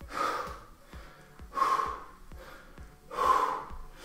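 A man breathing hard with the effort of squat jumps: a loud heavy breath with each jump, three of them about a second and a half apart.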